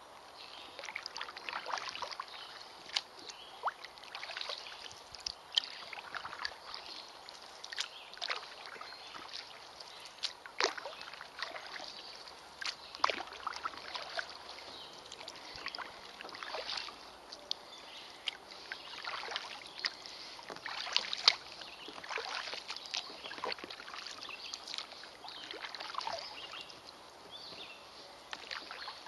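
Kayak paddle strokes: the blades dip and splash in the water at an irregular pace, with drips in between.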